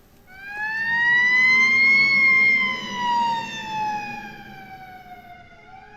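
Siren wailing: one slow rise in pitch over about two seconds, then a long slow fall, loudest near the top and fading toward the end. It is a harsh warning sound meant to make people clear the way.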